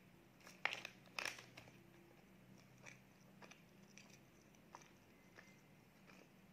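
Quiet, close-up eating sounds of a chocolate muffin: two crackly crunches about a second in, then soft chewing with small scattered mouth clicks.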